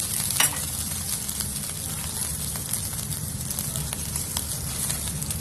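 Sofregit sizzling and crackling steadily in a hot paella pan, with a short knock about half a second in.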